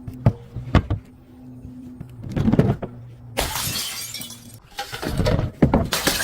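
Glass bottles breaking: a couple of sharp knocks, then repeated bursts of shattering glass, the longest about three and a half seconds in and another loud one near the end.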